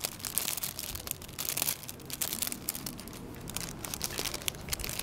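Crinkling and rustling of the ladybug package being handled, an irregular run of small crackles.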